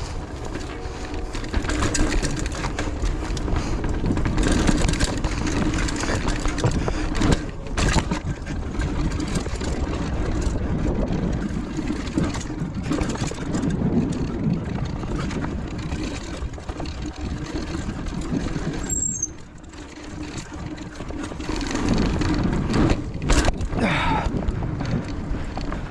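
A mountain bike rolling along a dirt trail with wind rushing over the microphone, and frequent knocks and rattles as it goes over bumps; it goes briefly quieter about nineteen seconds in.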